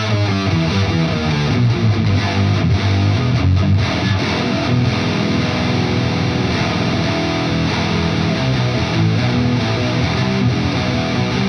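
Distorted electric guitar played through an Electro-Harmonix Intelligent Harmony Machine set as an octave pedal (mode 9), which adds an octave-shifted voice to the notes. The pedal sits in the amp's effects loop, after the amp's distortion.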